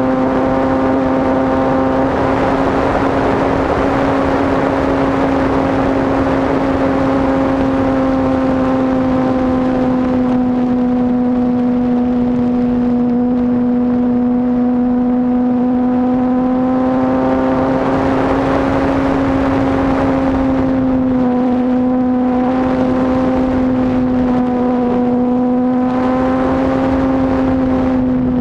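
Model airplane's motor and propeller running at a steady high pitch, heard from a camera riding on the plane. Wind rush over the airframe swells twice, about two seconds in and again about seventeen seconds in, while the motor note barely wavers.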